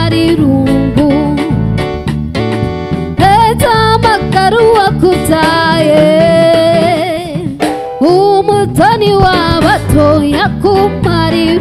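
Live band music: a woman singing a melody over electric bass, drum kit and keyboard.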